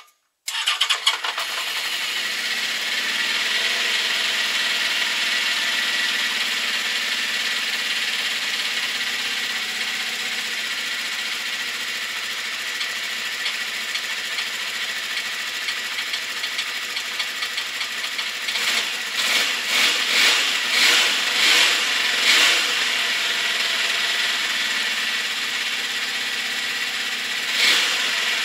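Honda CB650's air-cooled inline-four engine starting right at the beginning and running with a fast clicking, which the owner puts down to the valves on cylinders 3 and 4. The revs rise in several short surges about two-thirds of the way in and once more near the end.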